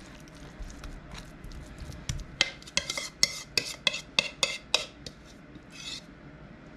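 A spoon scraping and tapping against a dish while thick casserole filling is scooped out and pressed down. A run of sharp clicks comes about three a second in the middle.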